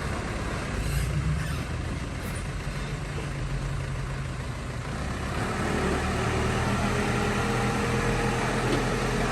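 Heavy earthmoving machine's diesel engine running steadily. About halfway through, the level rises slightly and a steady higher whine joins the engine note.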